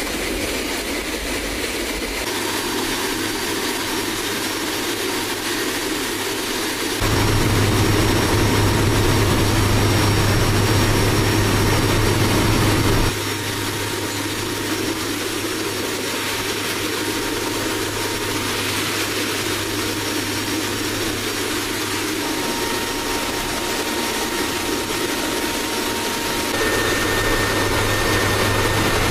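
Military aircraft's engine and airflow noise heard from inside the cargo cabin in flight, with the rear ramp open: a loud, steady drone with a strong low hum. The sound steps up or down abruptly a few times.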